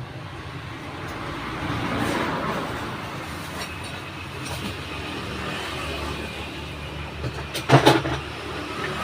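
Road traffic passing steadily, one vehicle swelling and fading about two seconds in. A short, loud clatter of knocks comes near the end.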